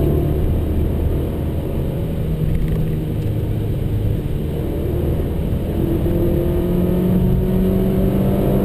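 Renaultsport Mégane Cup's turbocharged four-cylinder engine heard from inside the cabin, running under load at a steady note, then slowly rising in pitch as the car accelerates over the last few seconds, over a constant bed of road and tyre noise.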